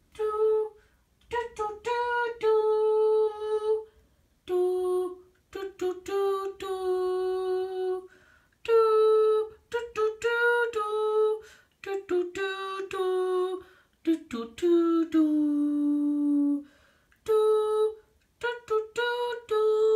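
A voice humming a wordless tune in held notes and short phrases, with abrupt silent gaps between them and one note sliding down late on.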